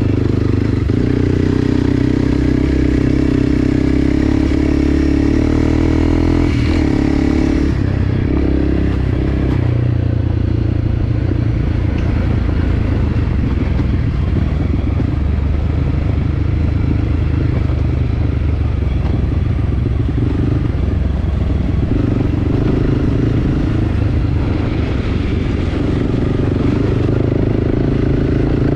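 Enduro motorcycle engine running steadily while riding, with rattling from the bike. The engine note changes about eight seconds in.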